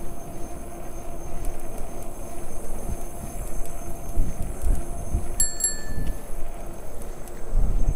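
A bicycle bell rung twice in quick succession about halfway through, each strike ringing briefly. Underneath, wind buffets the microphone in gusts over the steady hum of the electric bike's motor while riding.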